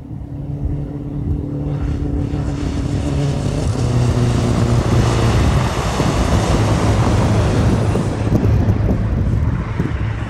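A road vehicle passing: an engine hum, then a rush of tyre and road noise that swells in the middle and fades near the end, over a steady low wind rumble on the microphone.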